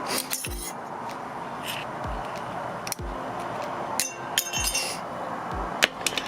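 Metal tools and brake bolts clinking against each other, several sharp ringing clinks a second or so apart, during work on a truck's front brakes, with a few low thuds in between.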